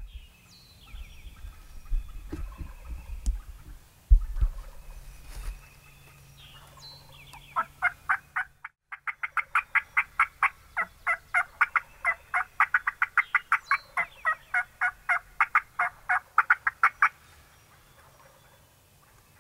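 Wild turkeys calling: a few faint gobbles in the first seconds over low thuds and rumble, then a long, loud run of quick, evenly repeated turkey calls at about five a second that stops a couple of seconds before the end.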